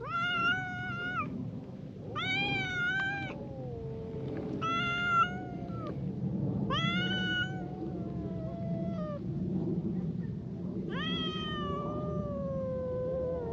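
A brown tabby cat and a tortoiseshell cat yowling at each other in a spat. There are five loud, high, drawn-out meows, and between them lower moans that slide downward.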